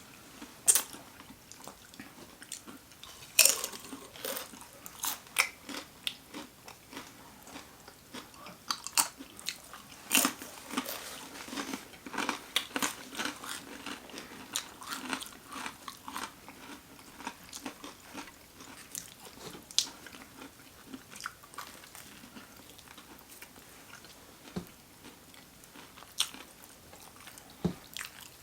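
Close-miked chewing and biting into sandwiches, with irregular crunches. The crunches are thickest in the first half and grow sparser later.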